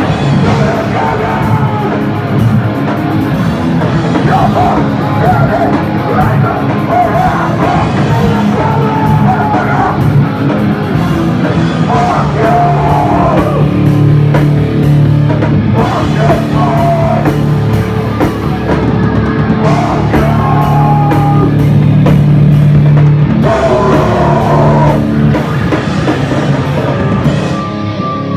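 Loud heavy rock music with a drum kit and singing; it drops in level near the end.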